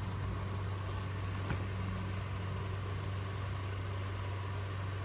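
Steady low background hum with an even hiss, and a single faint click about one and a half seconds in.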